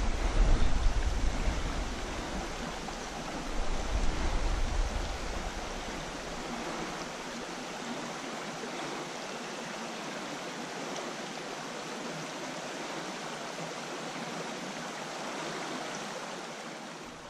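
Small creek flowing over a shallow riffle: a steady rush of water. A low rumble on the microphone fades out over the first five or six seconds.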